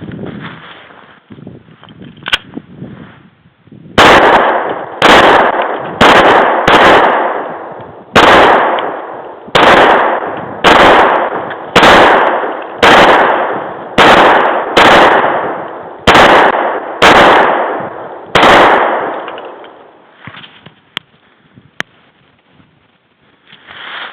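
Glock 29 pistol fired about fourteen times at a steady pace of roughly one shot a second, each shot sharp and loud with a ringing echo that dies away before the next. A few faint clicks come before the first shot and after the last.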